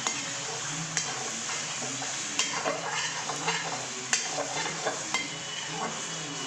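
Onion, tomato and spice masala sizzling in a frying pan while it is stirred with a spoon, the spoon knocking sharply against the pan several times.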